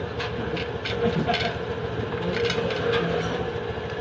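Light crisp crackles, about five of them, as crispy fried chicken is pulled apart by hand, over a steady background rumble.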